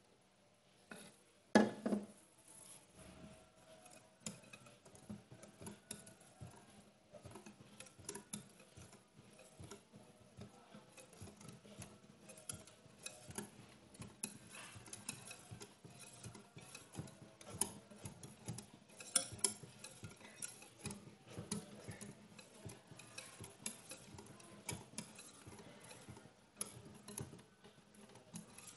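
Wire whisk beating thin batter in a glass bowl: a fast, uneven run of light ticks and clinks as the wires strike the bowl, with one louder knock about two seconds in.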